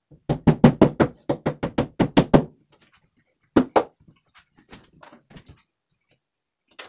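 Rubber mallet tapping a plastic drywall anchor into a pre-drilled hole in the wall: a quick run of about fourteen knocks over two seconds, then two harder knocks, then a few lighter taps.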